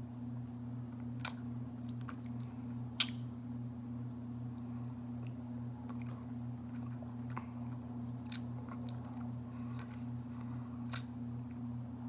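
Close-up chewing of sticky raw honeycomb: wet mouth sounds with a few sharp clicks and smacks spaced a couple of seconds apart. A steady low hum runs underneath.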